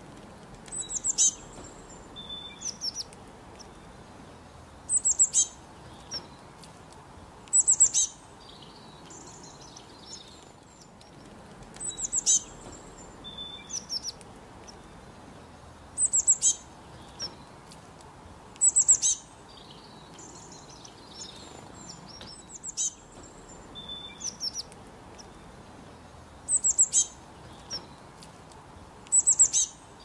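A small songbird repeating short, high-pitched call phrases every few seconds, with fainter twittering between them.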